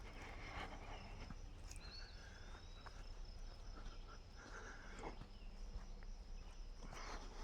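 Faint woodland ambience: a steady high insect drone, with one short curling bird whistle about two seconds in.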